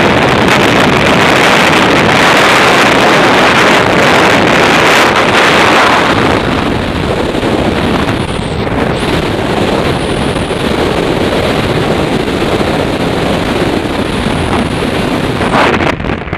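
Loud wind rushing over the microphone of a skydiver's first-person camera in freefall. About six seconds in the rush drops and turns lighter as the parachute opens. It carries on as steady wind noise under the canopy.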